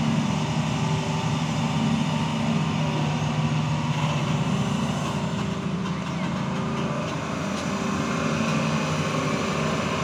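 Hitachi hydraulic excavator's diesel engine running steadily under load as the machine digs and swings its bucket.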